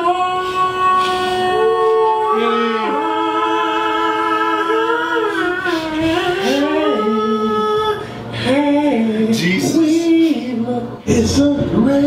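A single voice singing a slow melody in long held, sliding notes, with short breaks near the end.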